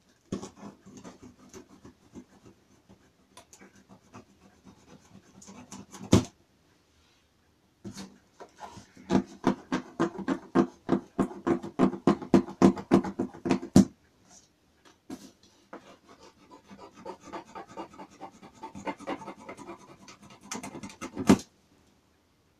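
A small knife sawing and scraping at plastic packing straps and cardboard on a shipping box, in rapid rasping back-and-forth strokes, fastest and loudest in the middle at about five strokes a second. A sharp crack comes about six seconds in and another near the end.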